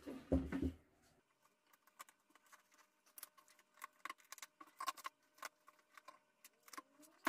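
A heavy amplifier thumps as it is turned over on a tabletop, then plastic cling wrap crackles and crinkles in irregular sharp bursts as hands pull at it and scissors cut it.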